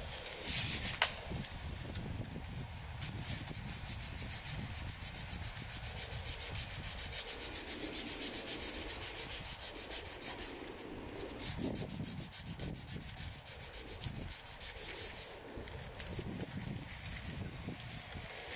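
Sandpaper rubbed back and forth by hand over a car's painted body panel in fast, even strokes, pausing briefly a couple of times. There is a sharp knock about a second in.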